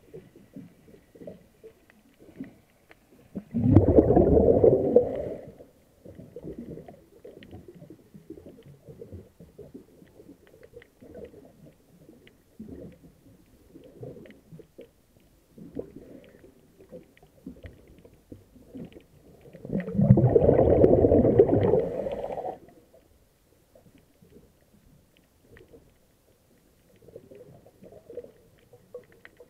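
A diver's exhaled breath bubbling out of the regulator, recorded underwater: two loud, rumbling bursts about two seconds long, one about four seconds in and another about twenty seconds in. Faint crackling and ticking fill the gaps between breaths.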